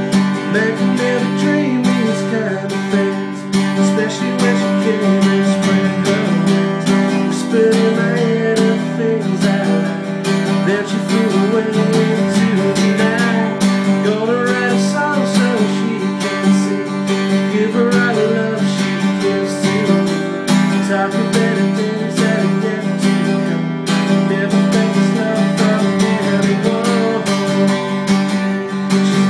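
Acoustic guitar playing a song: steady strummed and picked chords, with a melody line moving over them.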